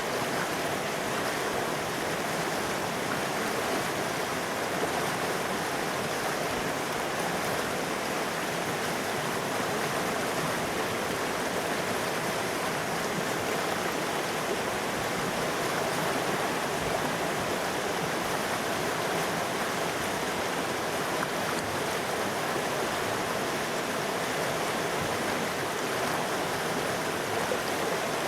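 River water rushing steadily over rocks, an even, unbroken rushing sound.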